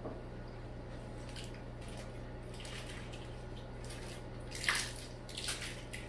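Aquarium water splashing and dripping in two short bursts near the end, the first the louder, over the tank's steady low hum.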